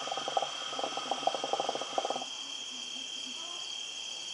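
Water in a Mya QT hookah's base bubbling rapidly as smoke is drawn through the hose, stopping about two seconds in. Crickets chirp steadily throughout.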